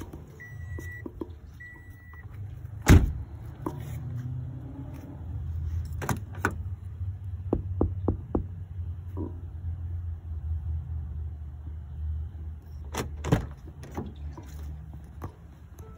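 A steady low hum with two short high beeps at the start, a loud thump about three seconds in, scattered clicks and knocks, and two more thumps near the end.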